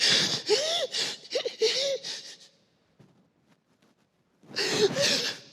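A person's voice in acted, sobbing cries and gasps, broken up with wavering pitch, for about two and a half seconds. After a pause of about two seconds comes another gasping cry near the end.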